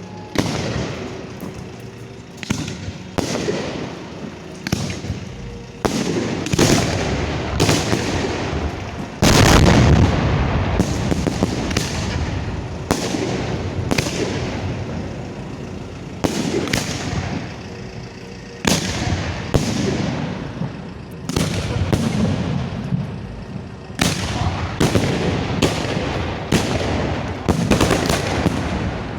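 Fireworks display at close range: sharp reports in quick succession, about one a second, each trailing into crackle. The heaviest boom comes about nine seconds in.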